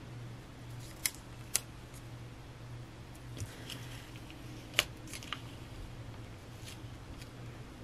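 Long fingernails clicking against a paper planner page and a paper sticker as the sticker is lifted and pressed back into place: a few scattered sharp clicks, the loudest nearly five seconds in, over a low steady hum.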